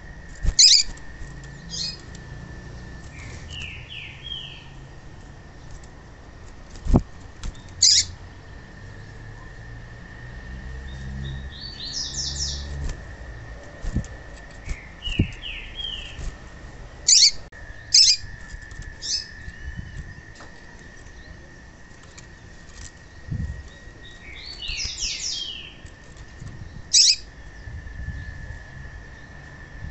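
Female yellow-bellied seedeater (papa-capim) calls: single sharp high chirps and clusters of quick short whistled notes, recurring every few seconds over a steady faint high hum. A few soft low thumps come in between.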